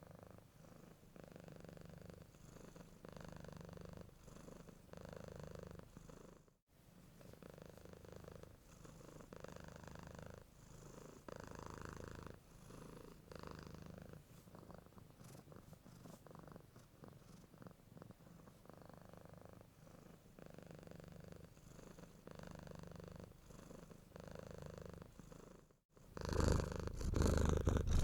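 A domestic cat purring close up, the purr swelling and fading with each breath about once a second. It cuts out for an instant twice, and after the second break, near the end, it comes back much louder.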